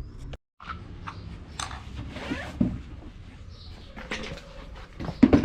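Handling noises: scattered knocks, clicks and rustling, with a couple of sharper knocks near the end.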